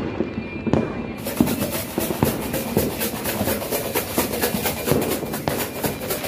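Fireworks and firecrackers going off: rapid, irregular pops and bangs that thicken into a dense crackle about a second in.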